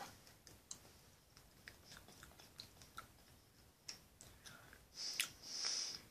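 Faint chewing of jelly beans: soft wet mouth clicks scattered through, with a brief hiss about five seconds in.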